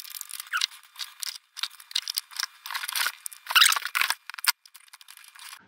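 Scissors snipping and working through a thin yellow plastic strip, a run of irregular short cuts and scrapes, loudest about three and a half seconds in.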